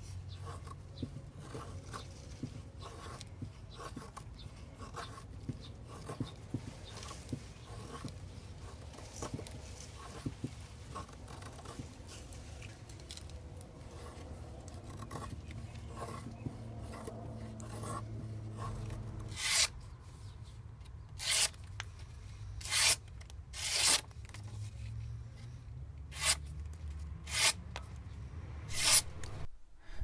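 Folding knife's steel blade shaving curls off a wooden stick to make a featherstick. First come many light scraping strokes. From about twenty seconds in come louder, separate shaving strokes, about seven of them, one to two seconds apart.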